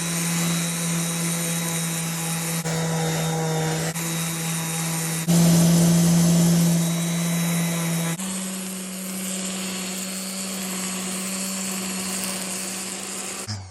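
Electric sander running steadily under load as it rounds over the edge of the table. It is switched off near the end and winds down with a falling pitch.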